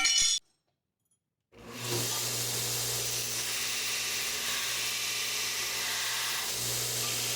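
A brief ringing metallic strike, then after a sudden cut, the steady hiss of a gas forge burner running, with a constant low hum under it.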